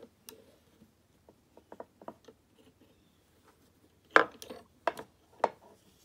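Faint scattered clicks from a picked American 1100 padlock being handled in a bench vise, with a tension wrench and pick still in its keyway. Three sharp metallic clacks follow near the end, about a second apart.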